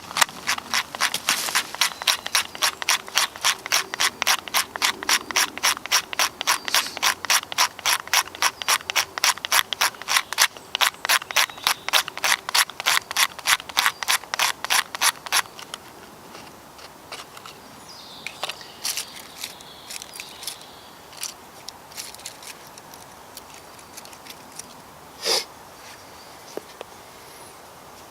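Rapid, even rasping strokes of a hand tool working wood or metal, about four a second, which stop after about fifteen seconds. A few scattered clicks and one short sharp scrape follow.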